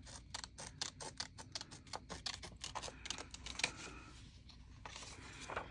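Scissors cutting a strip from a paper card: a quick run of small crisp snips and clicks for the first three or four seconds, then fainter paper handling.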